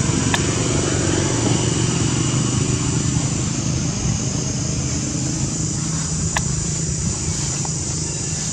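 Steady low hum of a motor vehicle engine running, with a constant high-pitched buzz above it and a few faint clicks.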